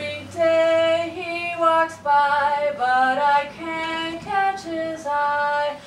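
A woman's voice singing a melody in held notes that step from pitch to pitch.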